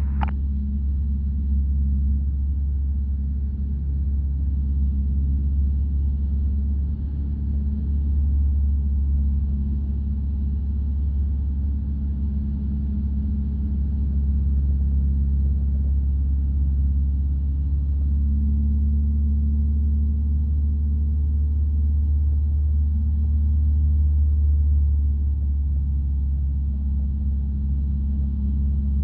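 Single-engine light aircraft's piston engine running steadily at low power during taxi, a constant low drone.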